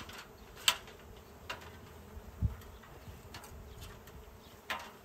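A honey bee swarm buzzing in the air, with a few brief, sharper sounds over the buzz; the loudest comes about a second in.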